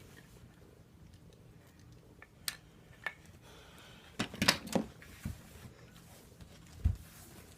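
A few light clicks and knocks of small wooden toy train pieces being handled and set in place, with a short run of clacks about four and a half seconds in and a dull thump near the end.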